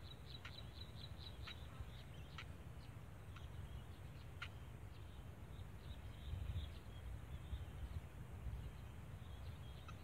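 Faint, short, high bird chirps and ticks, coming thick and fast in the first two or three seconds and then more sparsely, over a steady low rumble of outdoor background noise.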